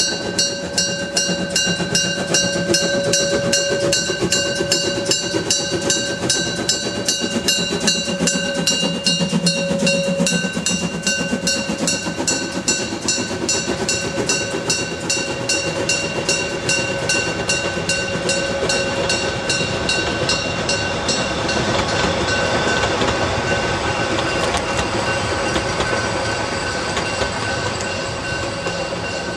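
Narrow-gauge steam locomotive working a mixed goods-and-passenger train past at close range, its exhaust beating about four times a second. Near the end the beat fades and the wagons and coach roll by with rail clatter.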